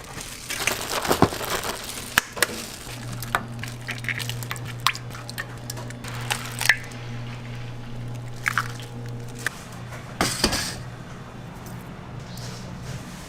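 Kitchen utensils and dishes being handled during food preparation: scattered clinks and knocks, with a couple of short scraping or rustling noises, over a low steady hum.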